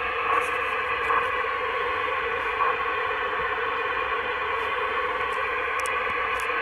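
Steady hiss and band static from a CB transceiver's speaker while it receives upper sideband on the 27 MHz band, with no clear voice coming through.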